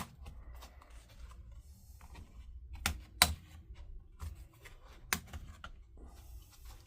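Laptop keyboard being pried out of its retaining locks with a spudger: a scatter of sharp clicks, the loudest a little over three seconds in, with light scraping between them.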